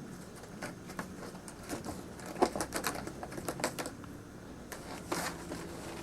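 A cat's claws raking a scratcher in quick, scratchy strokes, densest in the middle, with another short run near the end.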